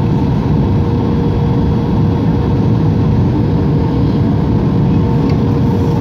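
Loud, steady engine and rushing-air noise inside an airliner cabin as the plane comes in low to land, with a thin, level whine running under it.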